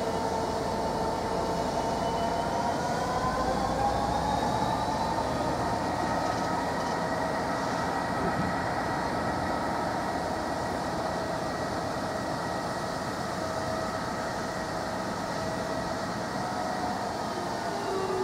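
A long freight train of bogie coal hopper wagons rolling steadily past, a continuous rumble and clatter of wheels on rail. Several thin high tones ring over it and slowly drift in pitch.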